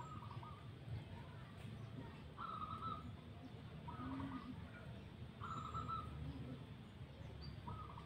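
Zebra doves (perkutut) cooing faintly in short repeated phrases, five in about eight seconds, over a steady low background rumble.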